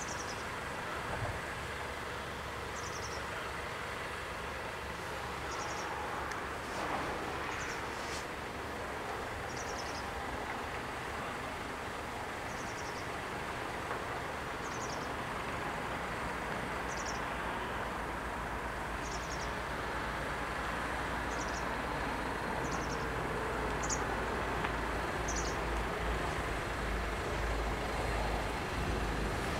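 Low rumble of an approaching train, growing slowly louder through the second half, over steady open-air background noise. A short high chirp repeats every couple of seconds.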